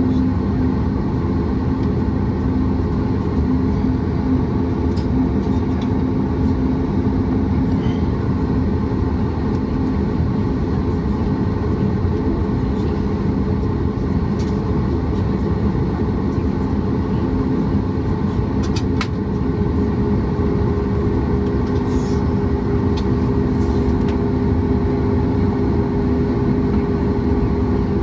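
Cabin noise of a Boeing 737 MAX 8 with its CFM LEAP-1B engines running: a steady rumble with a low engine hum, which steps up to a higher hum about two-thirds of the way through.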